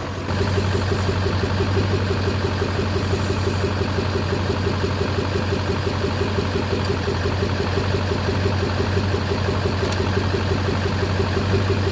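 LB7 Duramax 6.6-litre V8 turbodiesel idling steadily, with an even pulsing beat. A short high hiss comes twice in the first few seconds.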